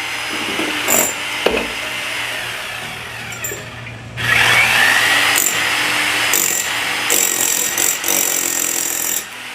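A power tool running, steady at first and then working harder and louder from about four seconds in until shortly before the end, with a few sharp clicks in the first two seconds.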